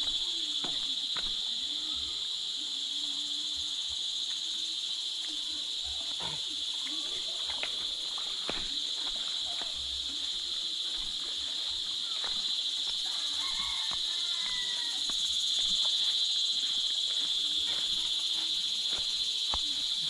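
Steady, high-pitched chorus of insects trilling without a break, with scattered soft footsteps through grass.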